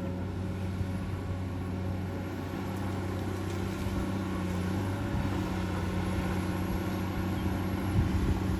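Komatsu PC200-8 excavator's six-cylinder diesel engine running steadily with a low hum that grows slightly louder, with a few low thuds near the end.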